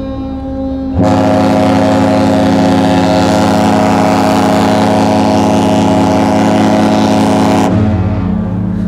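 Cruise ship's horn, the MS Europa 2 answering another ship's horn salute: one long, very loud blast of several deep tones sounding together, starting about a second in and cutting off abruptly near the end.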